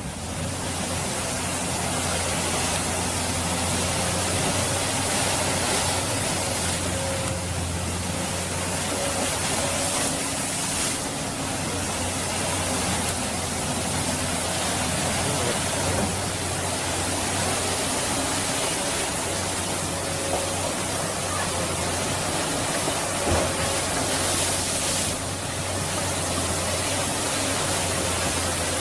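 Fast-flowing floodwater rushing steadily, with the diesel engine of a hydraulic crawler excavator standing in the current running underneath as a low, steady hum.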